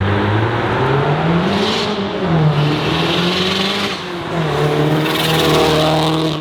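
Car engine revving with its exhaust note: the pitch rises and falls a few times, and between the swings the revs are held steady.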